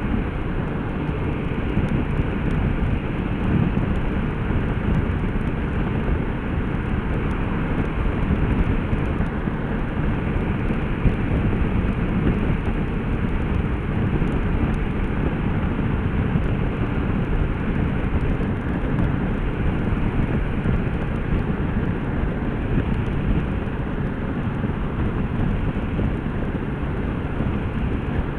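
Motorcycle at steady cruising speed: a constant rush of wind and road noise from the moving bike, mostly a low rumble.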